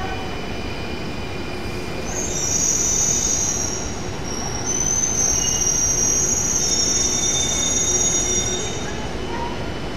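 SMRT C830 Alstom Metropolis metro train arriving at a station platform: a steady running rumble with high-pitched wheel squeal in two stretches, about two seconds in and again from about five to nine seconds, as it slows to a stop.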